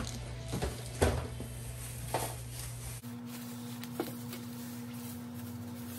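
Bubble wrap crinkling and rustling as wrapped items are unwrapped and handled, with a few sharp knocks of hard plastic parts against the table, the loudest about a second in. A steady low hum runs underneath and changes pitch abruptly about three seconds in.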